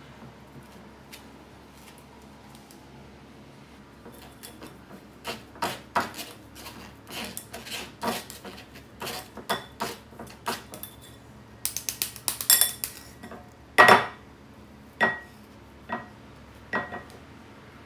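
Metal spoon scraping and pressing boiled potato through a stainless-steel mesh strainer, with clinks of metal against a glass bowl, starting about four seconds in. The loudest knock comes about two-thirds of the way through, followed by three or four separate taps that ring briefly.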